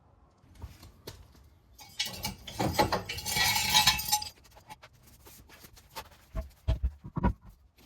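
Scattered metallic clinks and clicks, with a denser clatter of rattling and rustling from about two seconds in, then a few dull knocks near the end.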